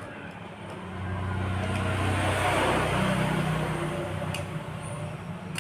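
A motor vehicle passing by: engine hum and road noise swell from about a second in, are loudest around the middle, then fade away.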